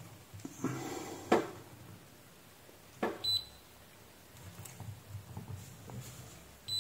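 Kaiweets digital multimeter in diode-test mode giving one short high beep about three seconds in as its probes make contact on the power-supply board. Light clicks of the probe tips on the board come before it.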